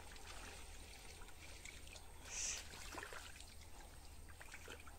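Faint trickling and sloshing of shallow, muddied pond water, with one brief louder splash about halfway through.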